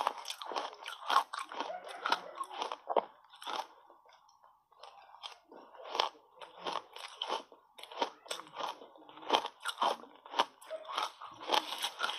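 Crushed ice coated in matcha powder crunching loudly as it is chewed in big mouthfuls, close to the microphone, with a brief quieter pause about four seconds in.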